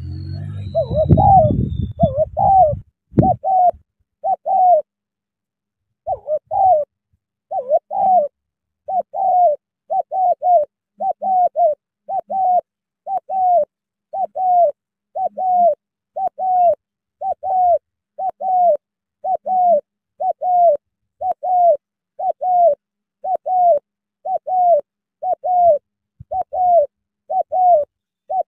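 Spotted doves cooing: short, falling coo notes repeated about once a second, sometimes in quick pairs, with a brief pause about five seconds in. A low rumble and a single knock sit under the first three seconds.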